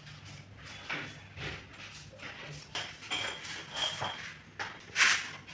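Handling and fitting of bathroom plumbing parts during a basin diverter plate install: a series of short scrapes and clicks, a thin high squeak around three to four seconds in, and a louder brief scrape near the end.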